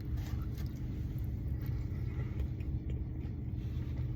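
A steady low rumble, with faint small clicks and crunches of someone eating cheese fries.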